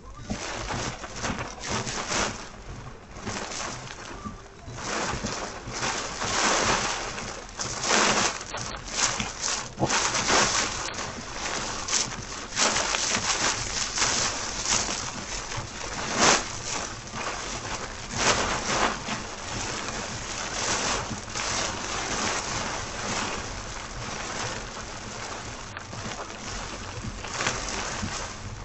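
Very heavy rain drumming on a moving car's roof and windscreen, heard inside the cabin as a dense hiss that swells and eases irregularly every second or two.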